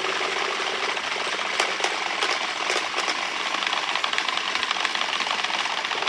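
Wooden Easter rattles (Klappern) being worked by a group, a dense, fast, continuous clatter with a few sharper cracks a second or two in. This is the Holy Week rattling that replaces the church bells while they are silent.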